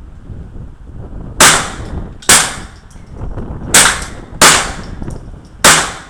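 Five shots from a SIG 522 .22 LR semi-automatic rifle, fired singly at an uneven pace about a second apart, over a steady low rumble of wind on the microphone.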